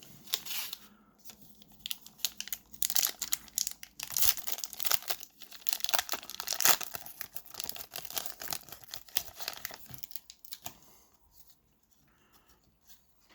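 A basketball trading card pack wrapper being torn open and crinkled in the hands, a long run of crackling and tearing that dies away about ten seconds in.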